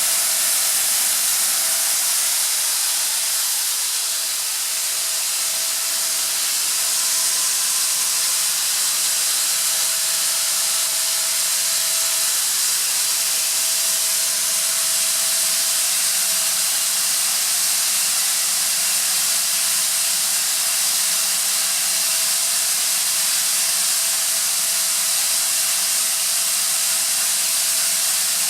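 Atlas Copco ZR315VSD two-stage oil-free rotary screw air compressor running steadily: a loud, even hiss with a constant mid-pitched tone under it.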